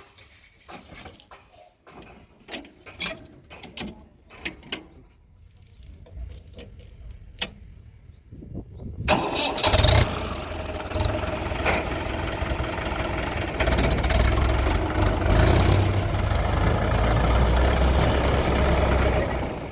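Scattered clicks and knocks, then about nine seconds in a heavy-machinery diesel engine starts and runs loud, swelling in revs twice.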